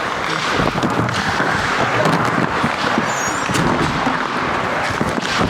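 Ice hockey play on the rink: a steady scrape of skates on ice, broken by many sharp clacks and thuds of sticks, puck and boards.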